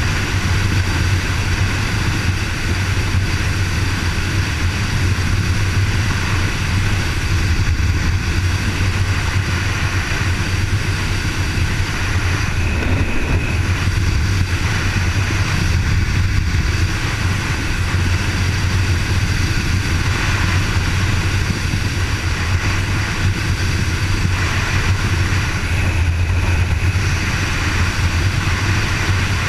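Kawasaki KLR650's single-cylinder four-stroke engine running steadily at road speed, mixed with wind and road noise.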